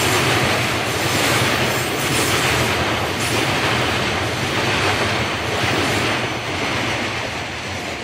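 Freight train of flat wagons loaded with long steel rails rolling past close by: a steady rumble and rattle of wheels on the track, swelling about once a second as the wheel sets go by.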